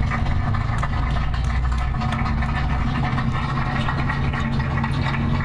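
Cruise boat's engine running with a steady low drone.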